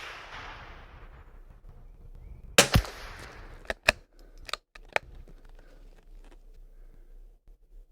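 A single .22 LR rifle shot from a Kimber .22 about two and a half seconds in, followed by a few sharp metallic clicks as the action is worked.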